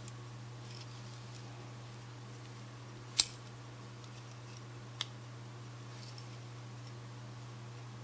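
Stainless-steel multi-tool pocket knife clicking as its fold-out tools are worked open and shut against the backspring: one sharp snap about three seconds in and a smaller click about two seconds later, with a few faint ticks between, over a steady low hum.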